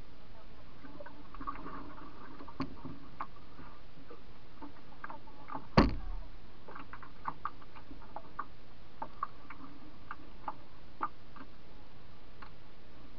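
Light, irregular ticks and clicks on a canoe's hull as it drifts, with one sharp, loud knock about six seconds in, over a steady low background.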